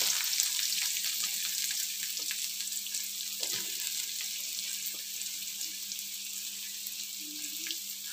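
Sliced onions and chopped garlic sizzling in hot oil in a pan, a steady frying hiss with small crackles that gradually eases.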